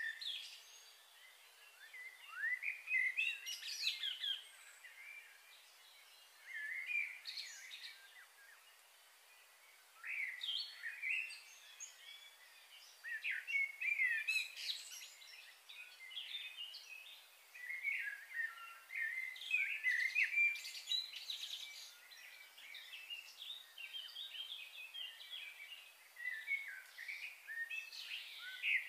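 Birds chirping and calling in bouts of short, quick notes, with quieter gaps of a second or two between bouts.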